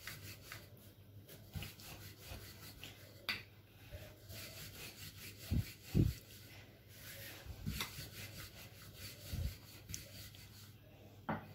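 Rolling pin rolling out missi roti dough on a marble rolling board: repeated soft rubbing strokes, with a few low knocks in the middle and near the end.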